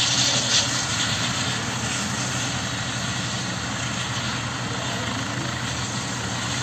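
Helicopter running on the ground, its engine and rotor making a steady noise with a low hum, a little louder for a moment at the start.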